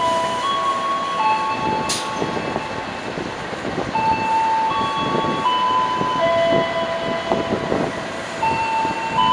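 An electronic chime melody played over a railway station's public-address system: clean single notes held for about half a second to a second each, stepping up and down. Beneath it is the low rumbling noise of a train at the platform, with one sharp click about two seconds in.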